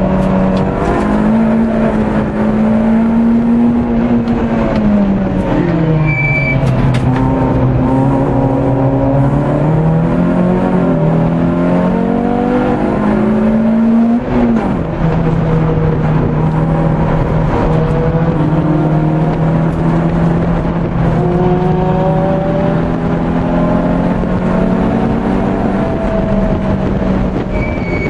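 Citroën Saxo VTS four-cylinder engine heard from inside the cabin under hard track driving. The engine note climbs, falls away about five seconds in, climbs steadily again for about eight seconds, drops sharply at a gear change about fourteen seconds in, then holds steady. A short high beep sounds about six seconds in.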